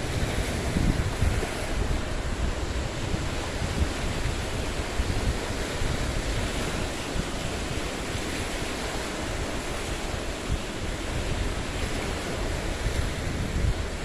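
Lake waves washing in against shoreline boulders, a steady surf sound, with wind noise on the microphone.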